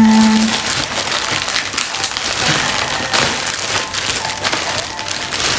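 Plastic packaging crinkling, crackling and tearing as a parcel is unwrapped by hand.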